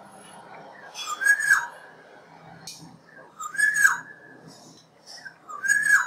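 Black-naped oriole giving three loud, fluty whistled calls about two and a half seconds apart, each a short phrase that dips down in pitch at its end.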